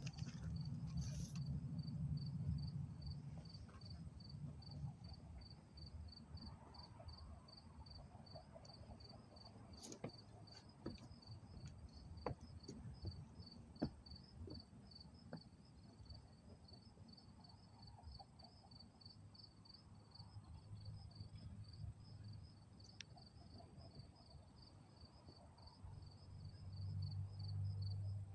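A cricket chirping steadily: short, high-pitched chirps at an even pace, a few a second. Under it runs a low rumble, stronger at the start and again near the end, with a few scattered sharp knocks.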